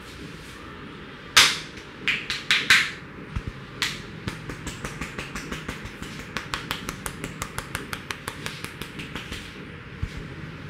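Barber's hands striking and tapping the head in a vigorous head massage: a loud slap, a few more slaps soon after, then a quick run of sharp taps, about five a second, for some five seconds.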